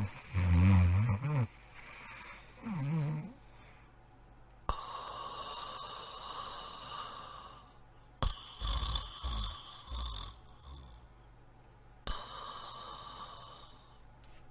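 Cartoon character snoring: two short low, wavering snores, then three long hissing breaths out.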